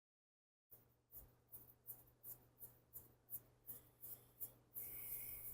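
Faint, evenly spaced light clicks, about three a second, over a steady low hum, with a short hiss near the end; the clicks start after a moment of dead silence.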